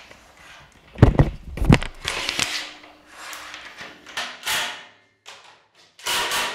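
A plastic dust cover is handled and pressed onto an aluminium-extrusion linear rail: two sharp knocks, then rubbing and scraping. Near the end, a cordless drill briefly drives a screw.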